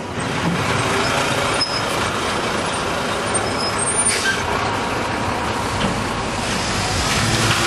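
Heavy tandem-axle dump truck driving past close by, its diesel engine running steadily, with a few brief high squeaks.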